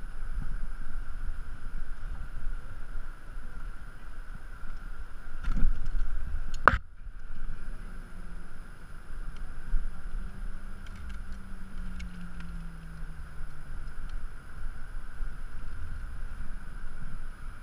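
Wind buffeting the microphone with a steady low rumble, and one sharp click about seven seconds in.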